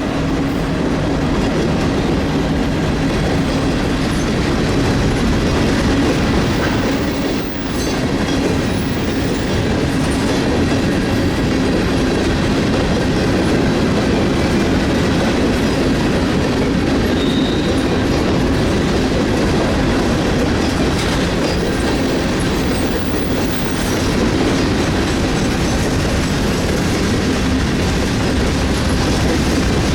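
Long freight train rolling past, its railcar wheels clacking over the rail joints with a steady loud rumble.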